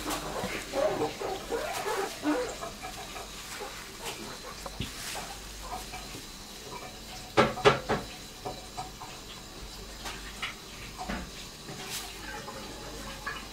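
Thin clear plastic bag crinkling and rustling in irregular bursts as a kitten paws and bites at it and a hand pushes it about. A few sharp, loud crinkles come a little past the middle.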